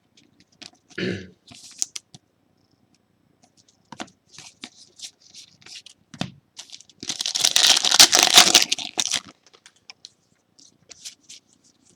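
Foil trading-card pack being torn open, with a louder tearing and crinkling of the wrapper about seven seconds in, among light clicks and rustles of cards being handled.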